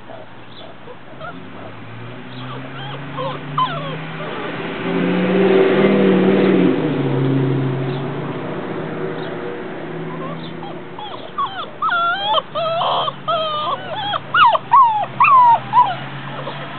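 Mastiff puppies whining and yipping, their high, wavering cries coming thick and fast in the second half. Earlier a low steady hum swells and fades away, loudest about six seconds in.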